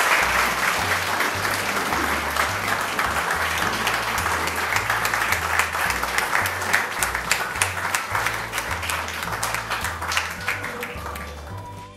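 Crowd applauding steadily, dense clapping over music with a stepping bass line; the applause fades away near the end.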